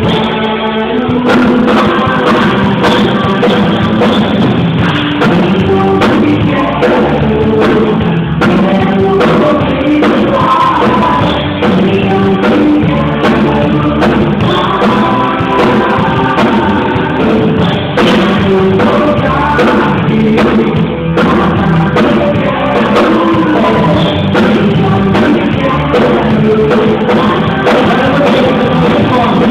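Live church worship music: voices singing over a band with a drum kit keeping a steady beat.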